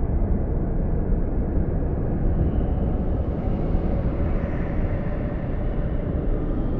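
Rain sound effect: a steady, dense wash of noise, heavy in the low end with little high hiss.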